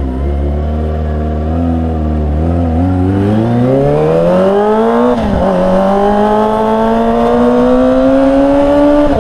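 A Kawasaki Ninja ZX-25R's 250 cc inline-four, running through a Yakuza R7 aftermarket exhaust, pulls away. It runs at low revs for a few seconds, then its pitch rises steadily, dips briefly at a gear change about five seconds in, and climbs slowly again through the next gear.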